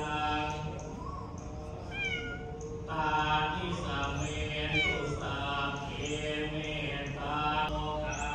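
A cat meowing twice, once about two seconds in and again in a falling meow around five seconds in, over steady chanting in the background.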